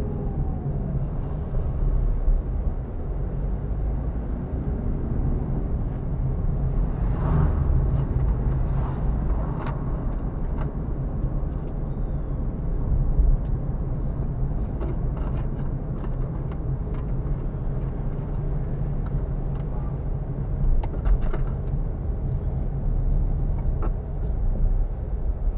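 Car engine and road noise while driving: a steady low rumble with an engine hum, broken by a few brief knocks and clicks.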